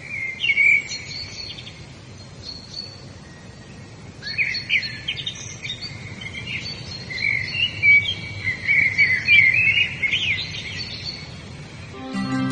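Songbirds singing in bursts of rapid chirps and warbled phrases over a steady background hiss. Soft music comes in near the end.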